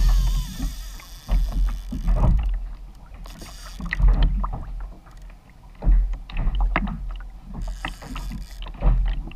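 Sea water slapping and splashing against the hull of a fishing kayak, with irregular low thumps carried through the hull.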